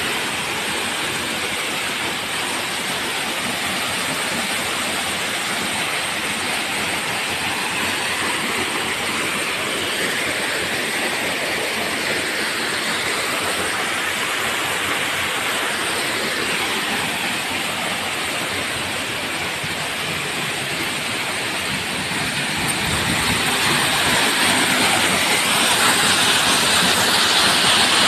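Waterfall pouring into a rocky pool: a steady rushing of falling water that grows louder over the last several seconds.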